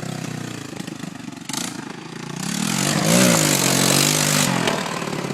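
ATV engine idling, then revving up about two and a half seconds in and dropping back about two seconds later, with a loud hiss while it revs.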